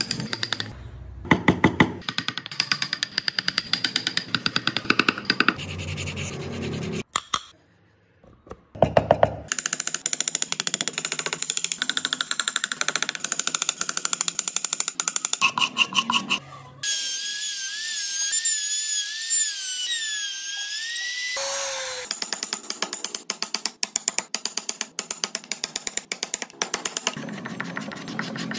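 Wood being carved: long runs of rapid cutting and scraping strokes from a chisel and gouge, and a rotary carving tool with a sanding bit running on the wood. A pitched whine wavers up and down for several seconds past the middle.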